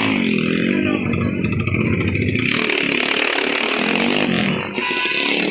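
Honda single-cylinder four-stroke street motorcycle on a loud racing exhaust, revved hard in rising and falling surges, then easing to a thinner, higher engine note about halfway through.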